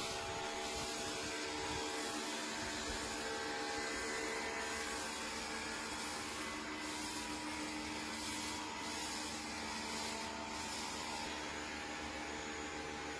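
A machine motor running steadily, a constant hum made of several held tones over a hiss.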